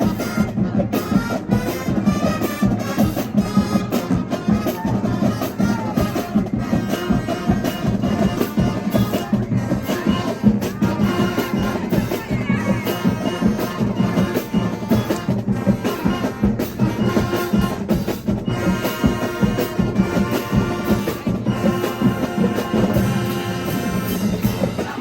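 Marching band playing live: brass horns carrying a melody over a steady drum-line beat.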